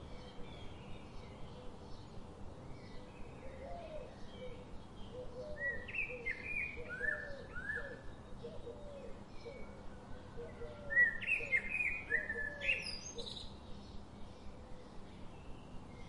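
Birds chirping: runs of short, falling chirps that come in two louder bursts, around six to eight seconds in and again around eleven to thirteen seconds in, with a lower repeated note under them. A faint, regular ticking, about two or three a second, continues throughout.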